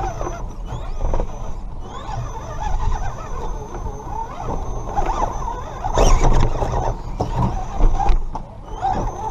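Electric motor and gear whine of a Redcat Gen7 Pro RC rock crawler, rising again and again with short pulls of throttle, with knocks and clatter as it climbs over rocks, heard from a camera mounted on the truck. The loudest clatter comes about six seconds in.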